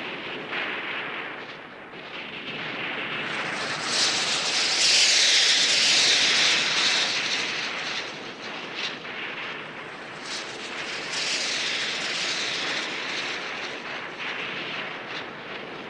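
Aircraft passing overhead in a sound-effects recording: a rushing engine noise that swells and fades twice, with scattered sharp cracks.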